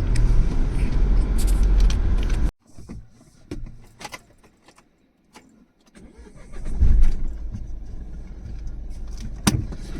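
Car on the move: a steady low engine-and-road rumble cuts off suddenly about two and a half seconds in. A few seconds of near quiet with scattered clicks follow, then the vehicle rumble builds again, loudest about seven seconds in, with a sharp click near the end.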